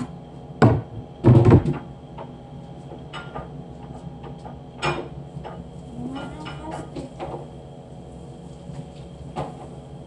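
Kitchen clatter: scattered knocks and bangs, the loudest a cluster about a second and a half in, over a steady hum.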